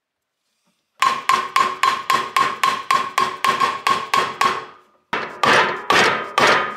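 Hammer taps on the chilled crankshaft, seating it into its bearing in the crankcase half of a 1998 Honda CR125R. The strikes are sharp and each rings briefly like metal: a quick run of about fourteen at about four a second, a short pause, then about five more, more spread out.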